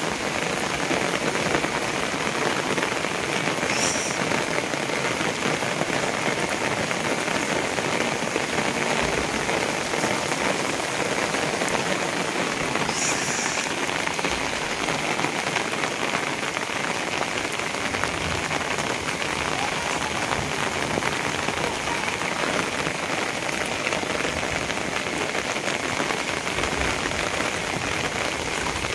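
Steady rain falling on a concrete rooftop terrace and the trees around it.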